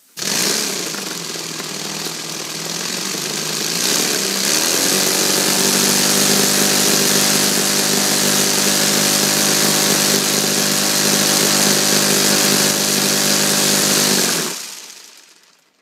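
3D-printed four-cylinder inline compressed-air engine running on 60 psi air and driving a 10x5 propeller. It sets off suddenly with a loud exhaust hiss and prop whir, picks up speed over the first few seconds, then holds a steady, even note at roughly 3,000 to 3,800 rpm. Near the end the sound dies away over about a second as the air is shut off and it spins down.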